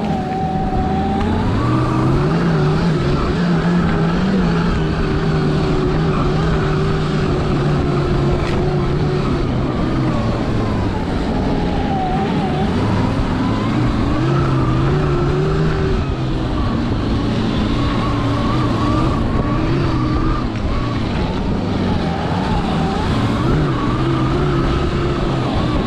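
Electric snowbike, an electric dirt bike on a snow track kit, under way: its motor whine rises and falls in pitch with the throttle over a steady rumble from the track.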